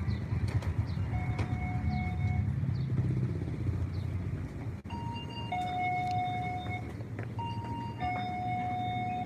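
Convenience store's electronic entry chime sounding a two-note high-low 'ding-dong' twice in the second half, the low note held about a second each time. Before that, a low rumble of street noise with the chime faint beneath it.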